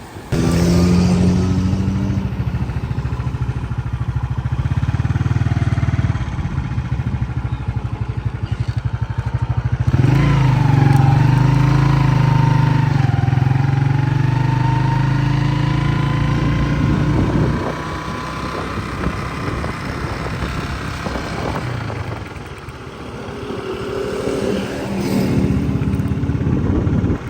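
A small engine running with a fast even putter. About ten seconds in its note shifts and a higher tone glides down and up. From about seventeen seconds it runs quieter.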